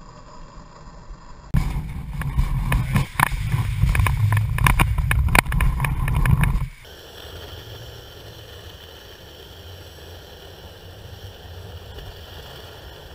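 Dual-motor electric longboard rolling, with steady wheel and wind noise and a faint high motor whine. About a second and a half in this cuts to a few seconds of loud rattling clatter from a metal shopping cart with the boards in it. Near the middle it cuts back to steady rolling noise with a faint whine.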